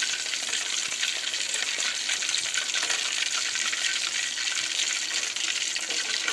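Hot oil sizzling in an aluminium kadai after deep-frying chicken leg pieces, a steady hiss.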